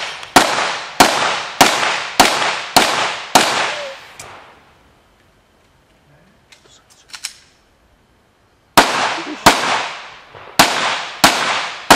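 Pistol shots in a practical shooting stage: a string of six shots about 0.6 s apart, a pause of several seconds with a few faint clicks, then four more shots near the end.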